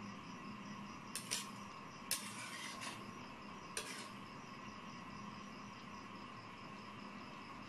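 A metal ladle clinking and scraping against a wok a few times in the first four seconds while the pork and bottle gourd simmer, over a steady background of chirping insects.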